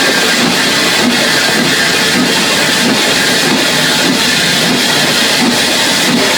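Train on the move on a heritage railway line: a steady, loud rumble and hiss with a faint regular beat about twice a second.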